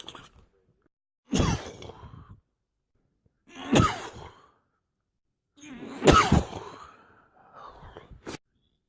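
A run of sneezes: three loud ones about two to two and a half seconds apart, each a sudden burst falling in pitch as it trails off, then a fainter one near the end.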